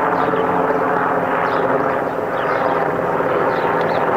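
Military helicopter flying low overhead: loud, steady rotor and engine noise.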